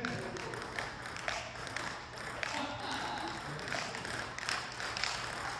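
Scattered sharp taps from badminton play in a gym hall, with faint voices in the background.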